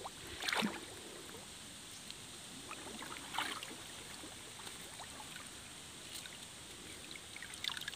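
Small water splashes and trickles in brief bouts over a steady hiss, the loudest splash about half a second in.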